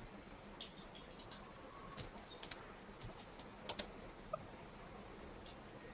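Faint computer keyboard and mouse clicks: a few scattered clicks, two of them in quick pairs.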